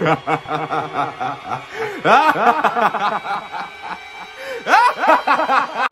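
A man laughing hard in quick, repeated 'ha' bursts, in several bouts with short breaks about two seconds in and again past four seconds.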